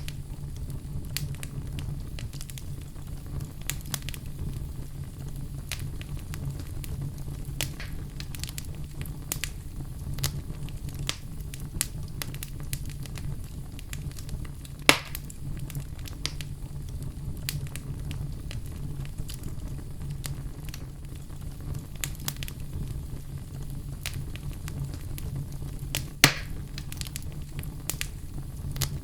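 Wood fire crackling in a fireplace: a steady low rumble of burning with scattered sharp crackles, and two louder pops, one about halfway and one near the end.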